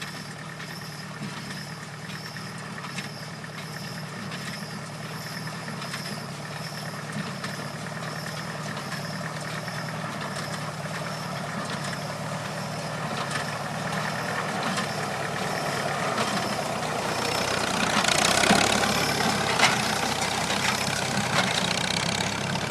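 1953 Farmall 300 tractor running steadily with a New Holland baler, a regular clatter about one and a half times a second over the engine. It gets steadily louder, with a few sharp clacks near the end.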